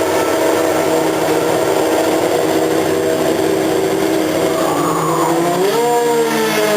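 Formula racing car engine running at a steady pitch, then revving up about five seconds in and holding at the higher pitch.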